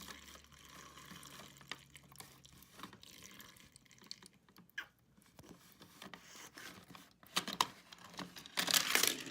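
Small plastic toy car being moved through a shallow tray of warm water, with light splashing, dripping and small plastic knocks. The splashing grows louder near the end.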